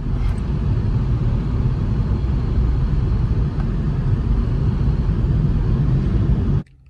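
Car driving: a steady low rumble of engine and road noise that cuts off suddenly near the end.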